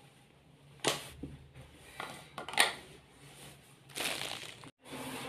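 Drinking from a small steel cup: short sips and slurps with handling of the cup and a steel vacuum flask. There are single noises about a second in and around two seconds, and a longer rustle about four seconds in.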